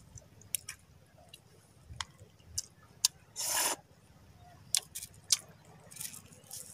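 Mouth sounds of eating raw sea urchin: scattered sharp, wet clicks and smacks, with one short, louder breathy rush about three and a half seconds in.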